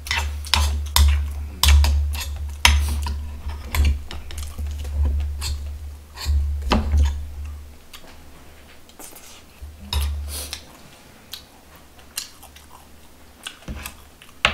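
Eating sounds: a metal spoon clinking and scraping in a stone bibimbap bowl, with chewing. A low throb runs under the first half and then drops away.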